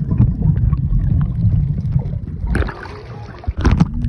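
Steady low engine rumble, broken about two and a half seconds in by a few sharp knocks and a brief drop before it carries on.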